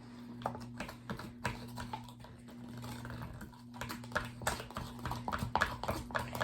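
Homemade slime being squeezed and worked by hand, giving irregular small wet clicks and pops that come thicker from about four seconds in, over a steady low hum.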